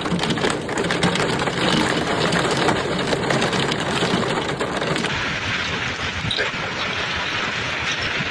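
Hailstones pelting hard surfaces in a dense, rapid clatter of impacts. About five seconds in, it changes to a steadier rushing hiss of hail and rain with only scattered hits.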